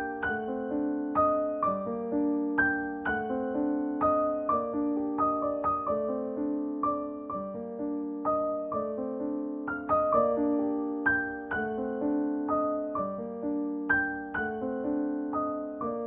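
Background music on solo piano: notes struck in steady succession, several a second, each ringing and fading into the next.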